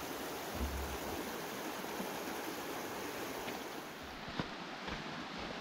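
Steady rush of flowing water, with a single sharp click about four and a half seconds in.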